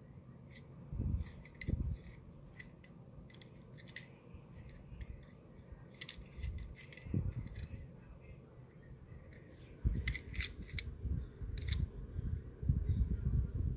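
Handling noise as a small die-cast toy truck is turned over in the hand close to a phone's microphone: scattered small clicks and dull low thumps, the thumps heaviest over the last few seconds.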